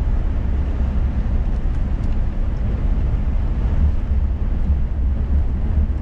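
Low, steady drone inside a Scania S500 truck cab cruising at highway speed on a snowy road: engine and road noise.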